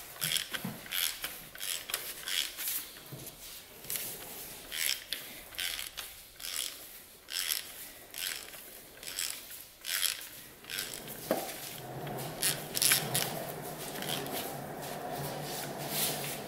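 Ratchet drawing down a connecting-rod cap bolt on an LS V8 engine block, its pawl clicking in short runs on each back-swing, about one or two a second. A steady low hum comes in about eleven seconds in.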